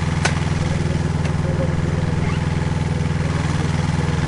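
Dando Terrier crawler drilling rig's engine running steadily at idle, with one sharp click about a quarter of a second in and a fainter one about a second later.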